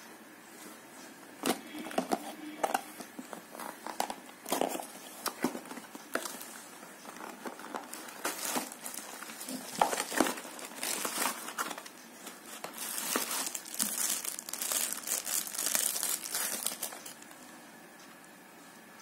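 Plastic wrapping and bubble wrap crinkling while a small cardboard phone box is handled and opened, in irregular bursts and clicks, with a denser stretch of crinkling near the end.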